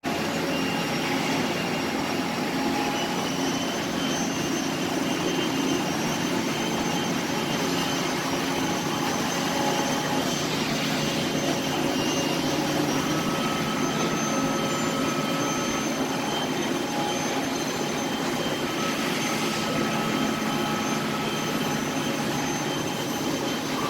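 Industrial wet floor scrubber running steadily: a continuous motor whine and rush with a few faint steady high tones over it.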